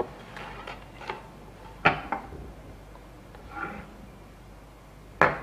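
A few light knocks and taps of a fishing rig and small objects being handled on a wooden tabletop, with a sharp click about two seconds in, a soft rustle midway and the loudest knock near the end.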